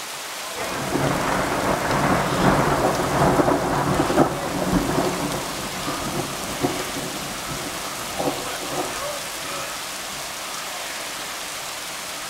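Steady rain falling, with a long roll of thunder that builds about half a second in, rumbles for several seconds and dies away, with a couple of short cracks as it fades.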